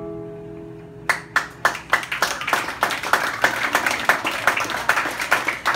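A last strummed acoustic guitar chord rings out and fades, then about a second in the audience starts clapping, a few claps at first thickening into steady applause.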